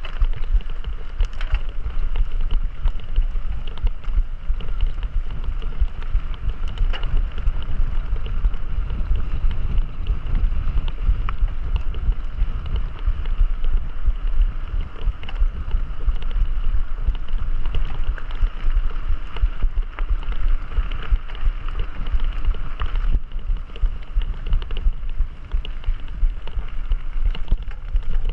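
Wind buffeting the microphone: a steady, fluttering low rumble with a faint hiss and a few isolated clicks.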